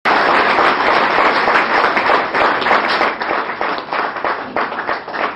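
An audience applauding, the clapping thinning out near the end.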